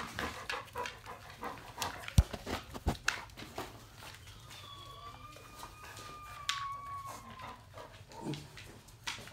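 Labrador Retriever puppies and their mother moving about on a tile floor, with scattered clicks and knocks, and near the middle a dog's long, thin whine lasting about three seconds.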